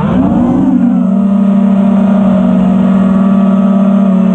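FPV quadcopter's brushless motors spinning Ethix Stout V3 propellers, a steady motor-and-prop whine heard through the onboard camera. The pitch rises and falls quickly in the first second as the throttle is punched, then holds level.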